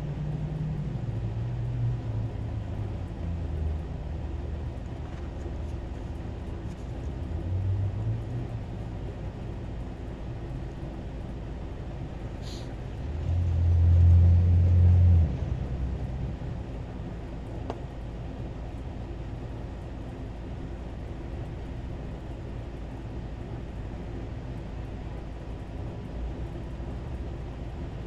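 A low rumble over a steady hum, swelling to its loudest for a couple of seconds about halfway through, then settling back.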